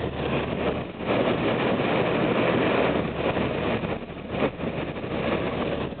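Car driving with a window down: wind rushing in through the open window over steady engine and road noise inside the cabin, loudest between about one and three seconds in.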